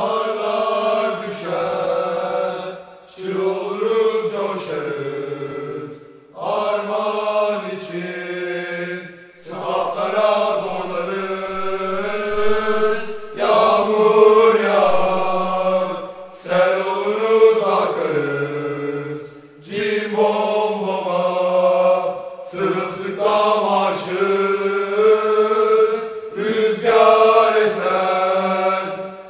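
Football supporters' chant sung by a group of voices, in melodic phrases of about three seconds with short breaks between them.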